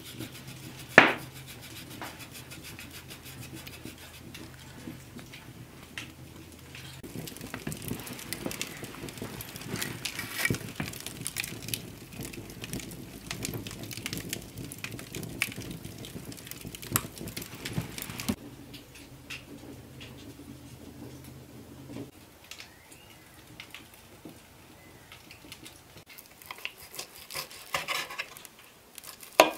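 Wood fire crackling and hissing in an open hearth, with many sharp pops, while an iron salamander heats in the glowing coals. Near the end, a knife and fork clink and scrape on a pewter plate.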